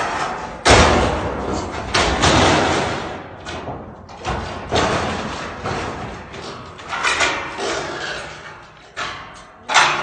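Corrugated roof sheets being knocked loose overhead during demolition: a series of loud bangs and thuds roughly every two seconds, the loudest about a second in.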